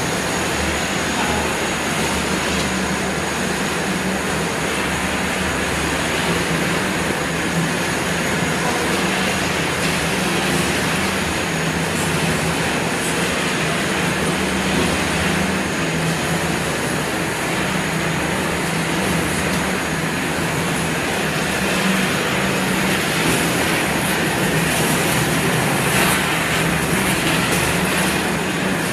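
Corn puff snack production line machinery running: extruder, conveyor motors and dryer together make a steady mechanical din with a low hum.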